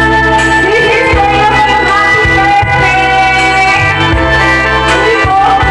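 Karaoke backing track with a steady beat, and a woman singing over it into a handheld microphone.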